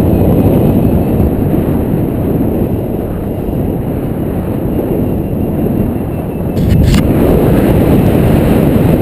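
Wind buffeting a paraglider pilot's camera microphone in flight: a loud, steady, low rumble. Two brief clicks come about seven seconds in, after which the rumble grows louder.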